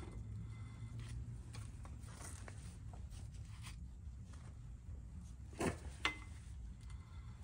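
Gloved hands handling a rear brake rotor fitted over its drum-in-hat parking brake: light rubbing and scraping, with two sharp clicks about half a second apart near the end.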